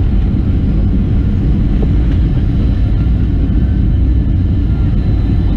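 Steady low rumble inside the cabin of a Boeing 737-700 in flight: engine and airflow noise, even throughout.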